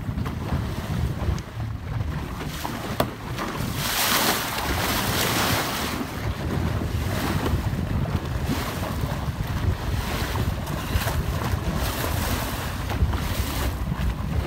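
Wind buffeting the microphone over the rush of seawater along a moving boat's hull. The rush swells louder for a couple of seconds about four seconds in.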